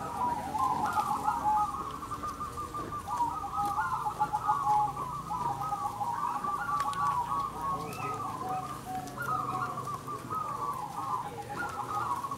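A chorus of many caged zebra doves (perkutut) cooing at once, their repeated phrases overlapping continuously.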